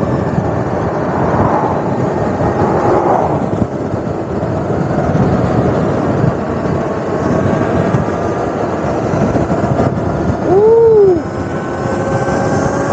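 Modified Razor electric mini bike cruising at about 50 mph: steady wind rush and road noise with a faint steady whine. About ten and a half seconds in, a short loud tone rises and then falls in pitch.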